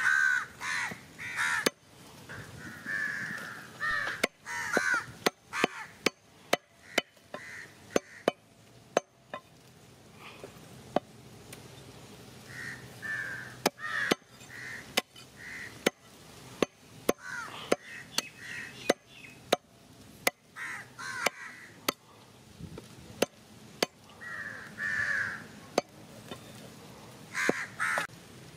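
A cleaver chopping raw chicken on a wooden stump block, giving sharp, irregular knocks, while crows caw again and again in short bursts.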